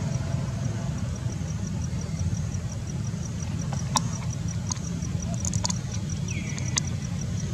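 Outdoor ambience: a steady low rumble, with a faint high ticking at an even pace and a few sharp clicks in the second half.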